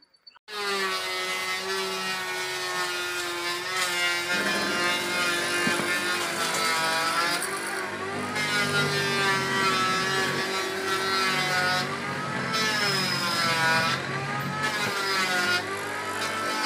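Electric motor of a drill-press mortising machine running as it cuts a mortise in timber. It starts abruptly about half a second in, and its whine sags in pitch and recovers several times as the bit bites into the wood.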